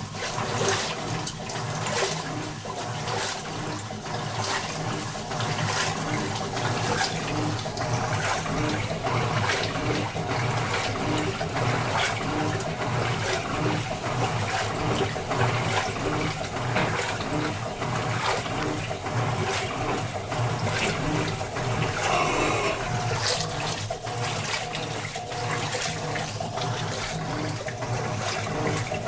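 Electrolux LTE09 top-loading washing machine running on a test cycle, with water rushing steadily over a low motor hum that carries a regular pulse. It starts abruptly.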